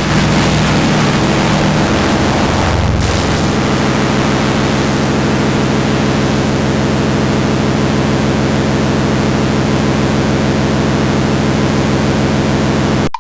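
Loud, harsh electronic noise made in GarageBand: a dense hiss of static over a steady low drone, holding unchanged and then cutting off abruptly near the end.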